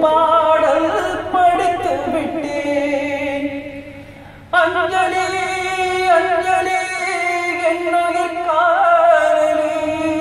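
A man singing into a handheld karaoke microphone, holding long notes with wavering pitch. The voice fades about four seconds in and comes back suddenly with a new held phrase.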